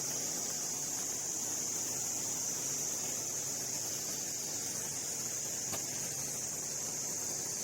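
Steady, unbroken high-pitched shrilling of an insect chorus, with a faint click about six seconds in.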